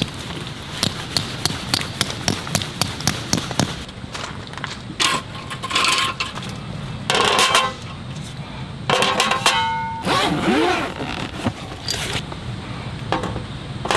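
Heavy rain on the car, with rapid sharp drop ticks for the first few seconds. Later come several separate clattering bursts with brief ringing clinks, like hard objects being handled inside the car.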